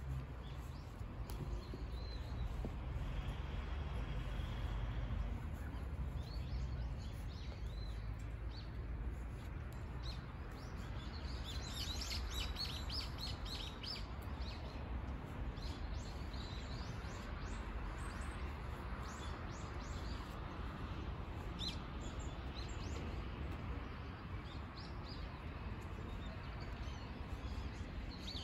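Small birds chirping in the trees, with a busy run of quick chirps about twelve seconds in and a few more near the end, over a steady low rumble.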